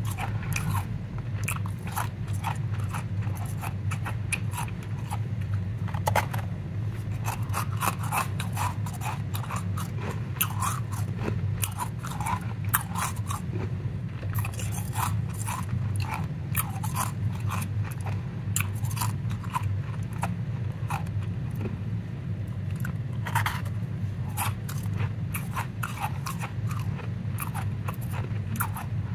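Powdery ice crunching and crackling in dense, irregular little bursts as it is squeezed and packed between gloved hands, over a steady low hum.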